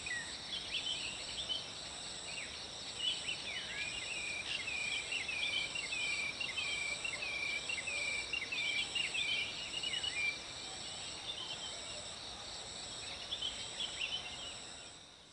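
Evening forest ambience: a steady chorus of insects with a high pulsing trill about once a second, and birds calling in runs of short repeated chirps, thickest in the middle.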